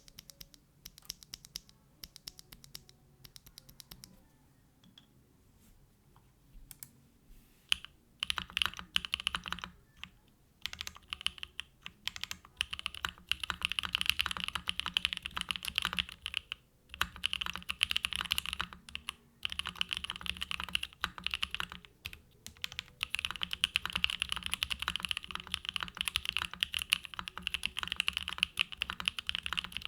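Typing on a Mode Tempo mechanical keyboard with a carbon-fibre plate and plate foam, hand-lubed Gateron Cream Soda switches and GMK Tako keycaps. Scattered single keystrokes at first, then fast, steady typing from about eight seconds in, broken by a few short pauses.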